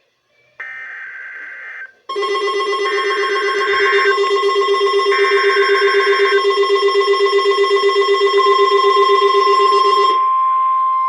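NOAA Weather Radio emergency alert: three short bursts of SAME header data, the first alone and the other two over a weather radio receiver's loud pulsing alarm buzz at about six pulses a second. Near the end the steady 1050 Hz warning tone comes up and holds on after the buzz cuts off, announcing a severe thunderstorm watch.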